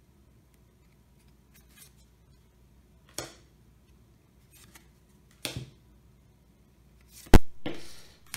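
Yu-Gi-Oh! trading cards being handled and flipped one by one: two brief swishes of card sliding over card, then a sharper snap and a rustle near the end.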